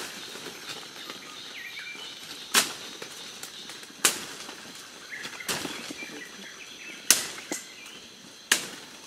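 Machete chops cutting through undergrowth stems and saplings: about five sharp, short strikes, roughly one every second and a half. Faint bird chirps sound behind them.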